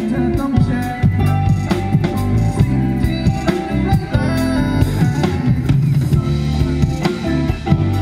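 Live rock band playing through the stage PA: drum kit hits over sustained electric guitar and bass guitar notes.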